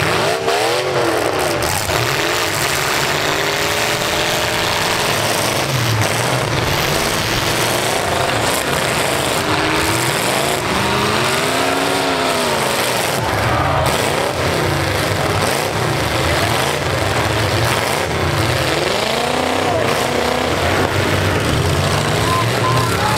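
Several demolition derby truck engines revving hard, their pitch swelling up and falling back again and again as the trucks ram and shove one another in the arena.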